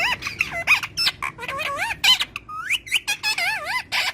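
Green ringneck parakeet (rose-ringed parakeet) chattering in a rapid string of short squeaky calls and squawks that glide and waver in pitch, with sharp clicks between them.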